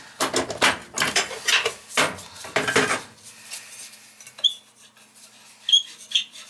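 Metal parts and tools of an oil burner clattering and clinking as it is taken apart to reach a stripped motor-to-pump coupling. A quick run of rattling strokes lasts about three seconds, then a few sharp, ringing clinks follow.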